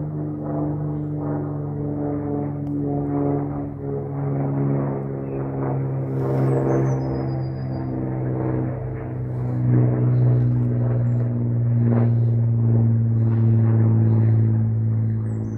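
Lancair Columbia 350 flying fast overhead: the steady drone of its six-cylinder piston engine and propeller, with the pitch slowly falling as it passes over and draws away.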